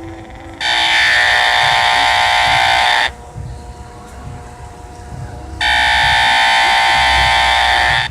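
Loud electronic buzz of an LED light's power-supply flicker, picked up by a small solar panel plugged into an audio amplifier. The buzz cuts in and out sharply twice, each time for about two and a half seconds, with a fainter hum in between.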